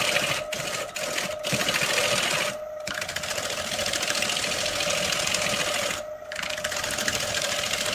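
Woodturning lathe running with a steady mechanical hum and hiss. The sound drops out briefly several times.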